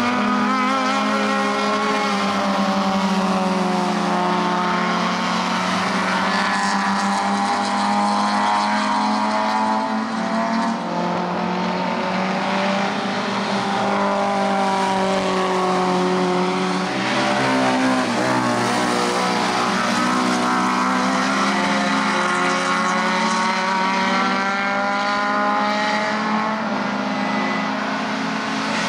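Four-cylinder 1300 cc touring-car engines racing past one after another, revving up and down through gear changes, often several cars heard at once.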